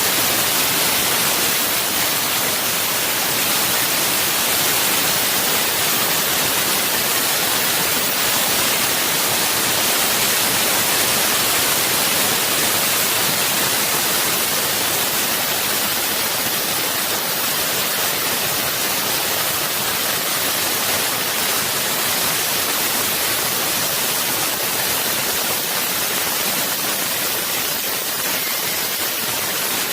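A 2000 W fiber laser cutting machine running a cut, heard as a steady, even hiss, strongest in the upper range, typical of the assist-gas jet through the cutting nozzle.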